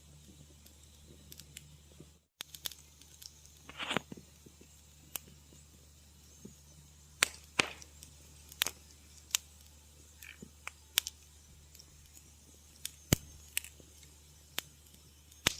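Wood fire crackling, with sharp, irregular pops and snaps every second or so over a faint steady low hum. The sound cuts out completely for an instant about two seconds in.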